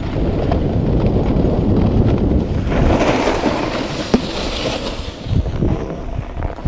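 Wind buffeting a GoPro's microphone while snowboarding downhill, a steady low rumble with a brighter hissing rush in the middle that eases off near the end.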